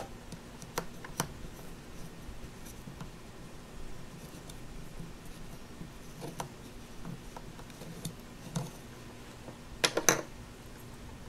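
Quiet taps and scrapes of a plastic toy roller rolling out Play-Doh on a wooden tabletop, with a quick cluster of louder plastic clicks near the end as a toy cupcake-wrapper mold is picked up.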